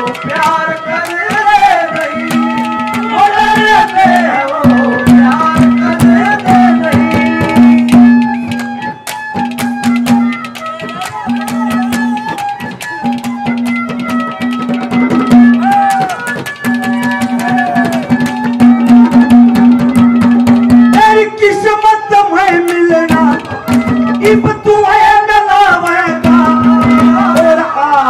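Live Haryanvi ragni folk music: drum strokes under a held, steady melody, with a man's singing over the first few seconds and again from about three-quarters of the way through.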